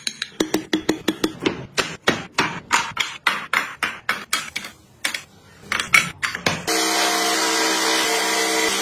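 A hammer striking a wood chisel in quick blows, about four a second, as it cuts wood. After a short lull, a bench-top saw runs with a steady hum from about seven seconds in as wood is fed into the blade.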